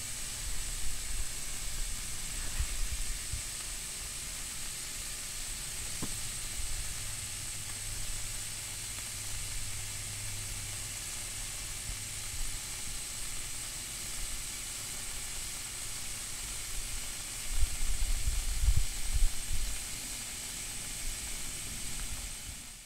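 765 kV overhead transmission line and its insulators hissing steadily from corona discharge, with a sharp crackle about six seconds in and a low hum that comes and goes in the first half. Bursts of low rumble come near the start and, loudest, about three quarters of the way through.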